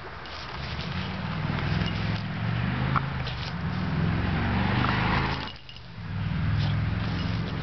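Long-haired cat purring loudly while it rolls and rubs on dry dirt, the purr breaking briefly for a breath about five and a half seconds in, with its fur scraping on the ground.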